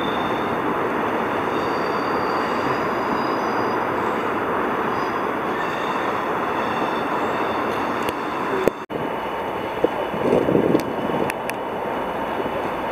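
A train running on the rails, a steady rumble of wheels with faint high-pitched wheel squeal above it. A brief drop-out comes about nine seconds in, followed by a few sharp clicks and knocks.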